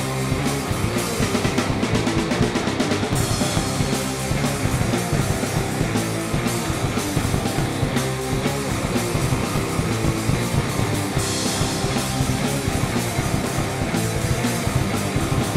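Rock music with drums, playing steadily.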